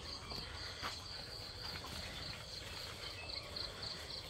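Insect, likely a cricket, chirping in a steady high-pitched pulse of about three chirps a second.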